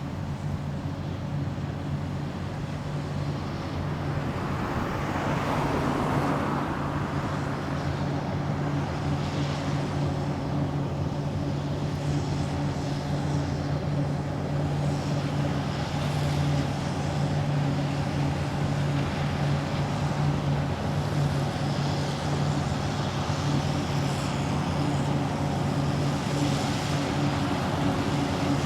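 Combine harvester running steadily at work, a constant engine hum with machinery noise over it, getting a little louder about five seconds in.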